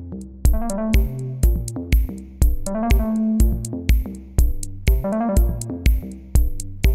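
Background electronic music: a steady drum-machine beat of about two kicks a second with hi-hat ticks under synthesizer notes.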